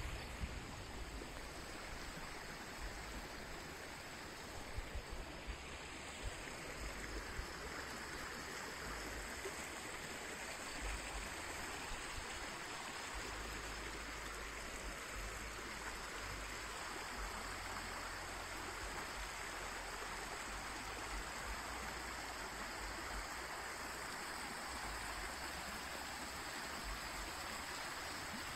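Small mountain brook running over stones, a steady rushing and babbling, with occasional low rumbles.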